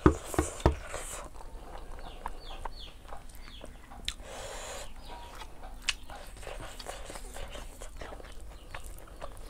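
Chickens calling in short, repeated high cries in the background, with a few sharp knocks in the first second and a brief rustle about four seconds in.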